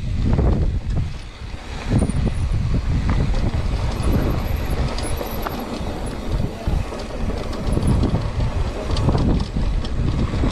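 Mountain bike rolling along a dry dirt trail: wind buffeting the microphone over the rumble of tyres on loose dirt, with scattered small rattles and clicks from the bike.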